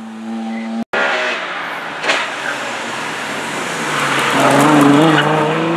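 A red mid-engined Ferrari V8 drives past close by. After a break just under a second in, a Ferrari 812 Superfast's V12 accelerates away, its engine note climbing and loudest about five seconds in.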